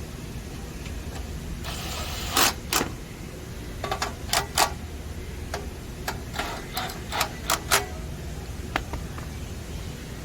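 About a dozen sharp, irregular clicks and knocks over several seconds as screws and a tool are handled against the unit's case while it is screwed back onto its back panel, with a short hiss just before them. A steady low hum runs underneath.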